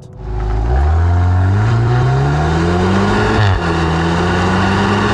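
Volkswagen Golf R's turbocharged 2.0-litre four-cylinder engine and exhaust in race mode under hard acceleration. The revs climb, drop suddenly about three and a half seconds in as the gearbox shifts up, then climb again.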